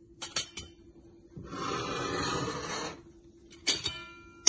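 Sharp clinks of utensils against a metal cooking pan, the last one near the end ringing on briefly, with a steady rushing hiss lasting about a second and a half in between.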